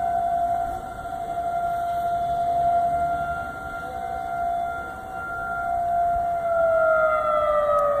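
Outdoor tornado warning siren sounding a steady tone during a drill, its loudness swelling and fading every couple of seconds. Near the end its pitch starts to fall as it winds down.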